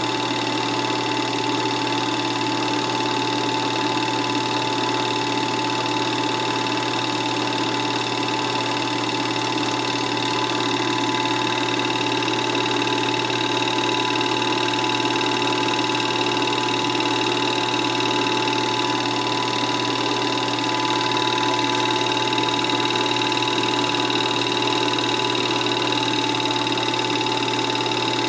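Film projector running steadily: a constant mechanical whirr with a few held tones.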